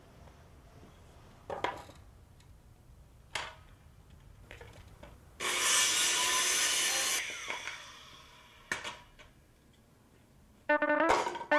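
Woodworking sounds: a few sharp knocks on wood, then a saw cutting through wood for about two seconds and trailing off. Music begins near the end.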